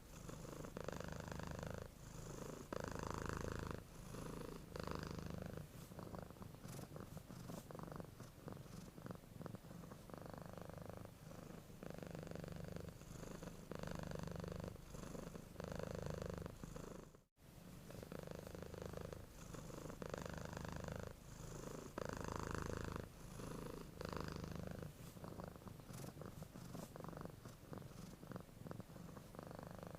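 Domestic cat purring while asleep, a steady low rumble that swells and eases with each breath. It cuts out for a split second a little past halfway.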